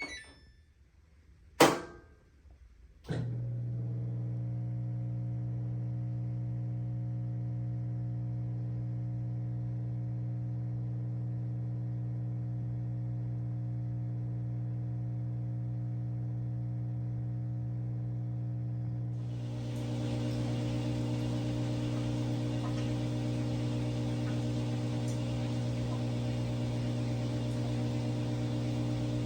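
Samsung front-load washing machine starting up after its clogged drain pump was cleared: two clicks, then a steady electric motor hum begins about three seconds in. About two-thirds of the way through, a rush of water noise joins and the hum grows louder.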